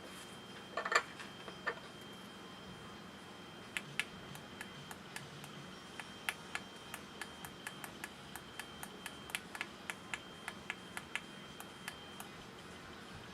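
Light, sharp clicks: a few about a second in, then a steady run of about three a second from about 4 s until shortly before the end. These fit the small tactile push buttons of a DIY LED digital clock kit being pressed over and over to step the setting.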